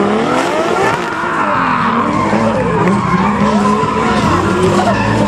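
Two Nissan Skyline sedan drift cars drifting in tandem, their engines loud and revving up and down over the hiss of spinning, sliding tyres.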